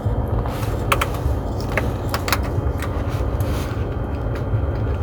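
Sharp, scattered clicks and light metallic taps of hand tools and ignition-coil parts being handled during a spark plug and coil change, over a steady low rumble.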